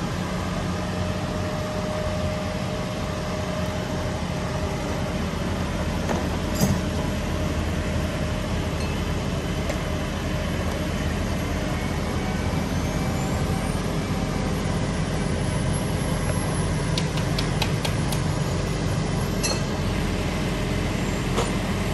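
Engines of parked utility bucket trucks idling, a steady low hum, with a few scattered light clicks and knocks.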